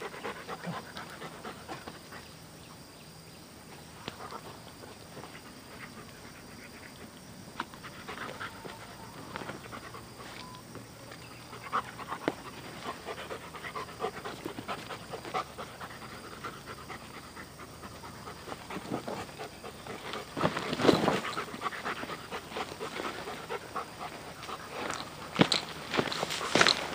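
A dog panting steadily, with scattered clicks and scuffs, a louder stretch of noise about twenty seconds in, and sharper clicks near the end.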